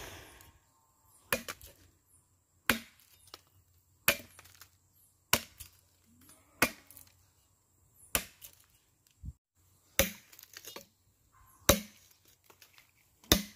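Machete chopping into a wooden log, about nine sharp blows, one every second and a half or so, cutting chips out of the wood to shape it.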